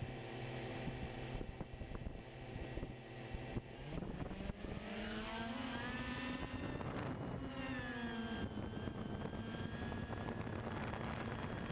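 Multirotor drone's electric motors and propellers spinning steadily on the ground, then spooling up with a rising whine about four seconds in as it lifts off. The pitch slides up and down during the climb, then settles into a steady hum.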